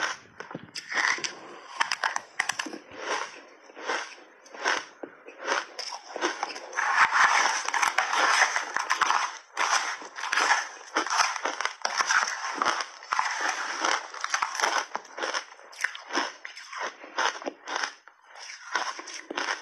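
Shaved ice coated in milk powder being bitten and chewed in big mouthfuls: loud, irregular crunching, densest for a couple of seconds around the middle.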